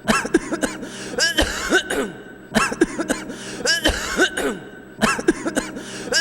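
A man's fake throat-clearing cough, 'ahem', repeated over and over at an even pace, about one every second and a quarter.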